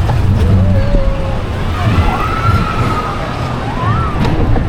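Busy outdoor crowd: people's voices, with a few drawn-out calls rising and falling in pitch, over a steady low rumble.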